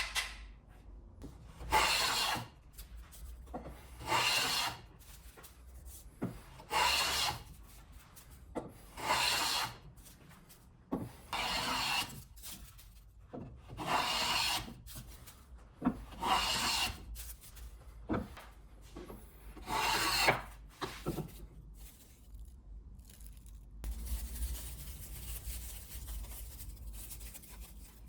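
A hand tool scraping along wood in long, even strokes, about one every two and a half seconds, with short knocks between some strokes. Near the end the strokes stop and a steady low hiss takes over.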